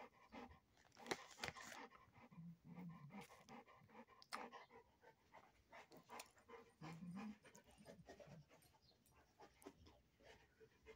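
A large dog panting quietly, with scattered small clicks through it.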